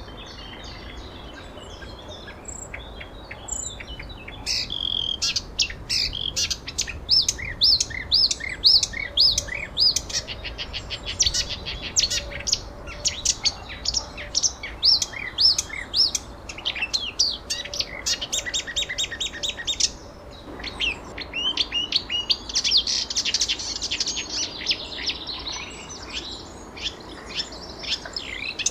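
Songbirds chirping and singing: fast runs of short, repeated, downward-sweeping notes, starting after a quieter first few seconds and pausing briefly about two-thirds of the way through, over faint steady background noise.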